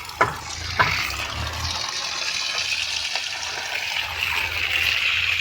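Water gushing steadily into a heap of sand-and-cement mix as it is wetted for concrete, after a couple of short knocks in the first second.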